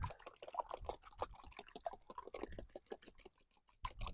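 Three raw eggs being whisked in a tub: quick, light clicks of the utensil striking the tub at several strokes a second. The strokes pause briefly about three-quarters of the way through, then start again.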